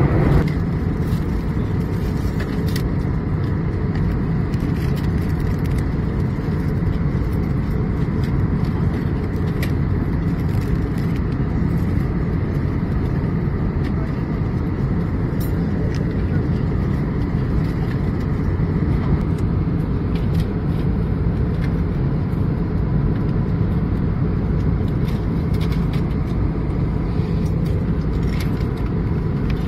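Steady cabin noise of an Airbus A321neo airliner: an even, low rush of engine and airflow, with a faint high hum on top and a few light clicks.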